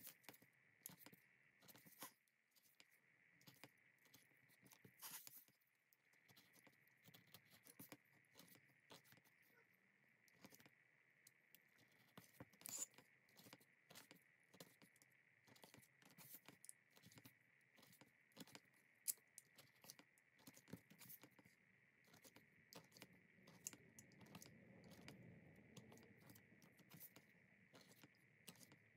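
Faint, irregular clicks and short scrapes of leather being worked by hand, with a steady faint high hiss underneath. A slightly louder rubbing stretch comes near the end.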